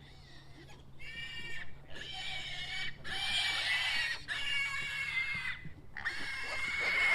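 Weaned piglets squealing in a run of about five long, high-pitched squeals, one after another, getting louder toward the end.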